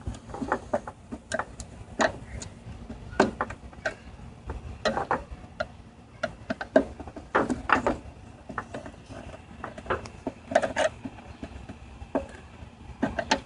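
Irregular light clicks and knocks, a few a second and uneven, of hard plastic parts being handled and worked.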